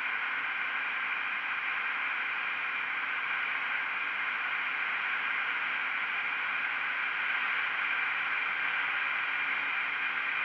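Steady rush of wind and road noise over the microphone of a camera mounted outside a KTM Duke 125 motorcycle at road speed, with a faint steady engine hum underneath.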